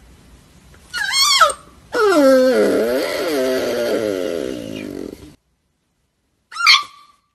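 A pet wailing. A short wavering cry comes about a second in, then a long cry that slides down in pitch and wavers for about three seconds before cutting off abruptly. After a moment of silence there is one brief high cry near the end.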